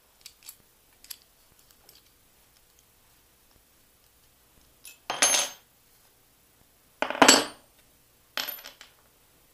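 Small metal fittings and a wrench clinking against each other and onto a wooden workbench as they are handled: a few faint ticks, then three louder metallic clinks in the second half.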